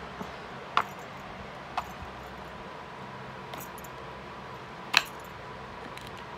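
A few sharp small clicks and taps from handling the box and packaging of a charging cable, the loudest about five seconds in, over a faint steady hum.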